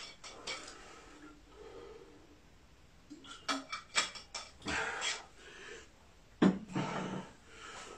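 Hard breathing after a set of kicks, with a water bottle being handled: a few small clicks and rattles, then a sharp knock as the bottle is set down on a table about six seconds in.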